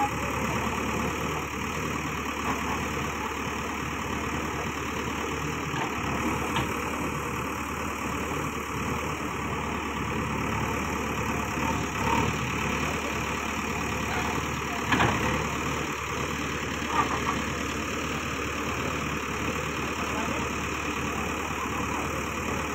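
JCB 3DX backhoe loader's diesel engine running steadily under load as the backhoe arm digs and moves broken brick rubble. A few sharp clatters of bricks against the bucket stand out in the second half.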